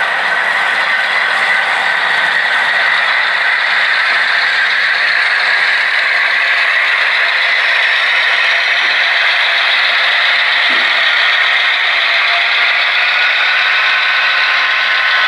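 A long string of model railroad coal hopper cars rolling past, with the steady rolling noise of their wheels on the track throughout.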